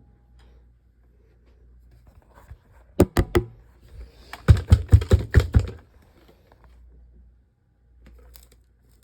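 A series of sharp taps or knocks: four quick ones about three seconds in, then a faster run of about eight louder ones about a second later, over a low steady hum.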